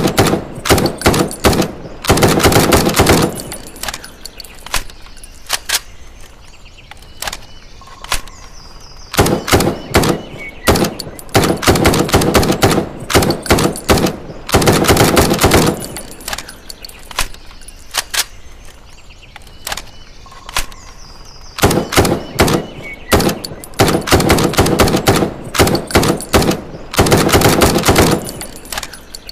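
M656 rifle sound effect: loud strings of rapid gunshots separated by quieter stretches with scattered single shots and short mechanical clicks. The same sequence repeats about every twelve seconds.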